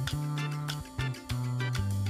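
Background music with a bass line and a steady beat.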